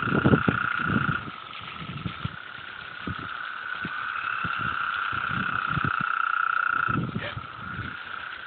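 Frogs calling from a pond in a continuous high trilling chorus, which dips a little after a second and again near the end, with low thumps mixed in.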